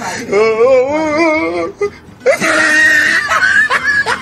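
A man's voice wailing in a wavering, quavering pitch, then after a brief pause a long, loud strained yell, in mock distress during horseplay.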